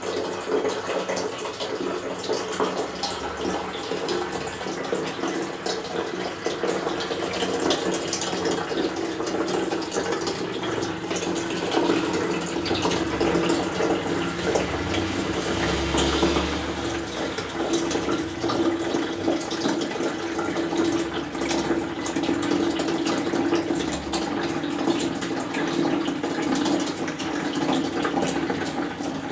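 Toilet flush water running in a steady rush, with a low steady hum beneath it.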